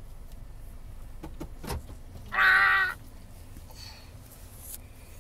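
Young child giving one short, loud, high-pitched squeal about halfway through, preceded by a few faint handling knocks.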